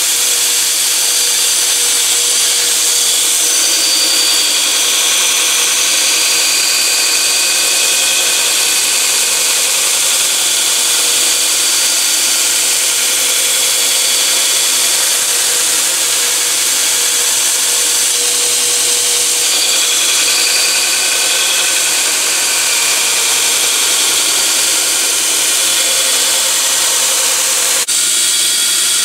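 Belt grinder running continuously as a steel knife blade is ground against the abrasive belt, giving a steady loud hiss with a wavering high-pitched whine.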